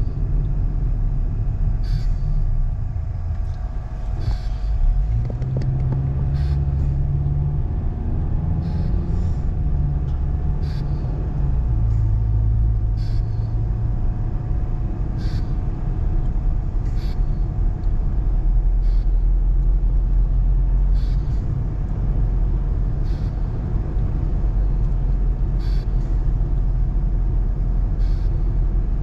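Car driving along a road: a steady low engine and tyre rumble, with the engine pitch stepping up as it accelerates about five seconds in. Faint short clicks come every second or two.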